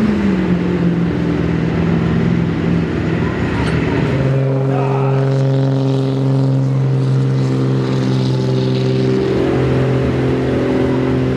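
Diesel pickup truck engines under heavy load, pulling a weight-transfer sled. In the first seconds the engine's pitch sags; about four seconds in the sound switches abruptly to another engine holding a steady pitch.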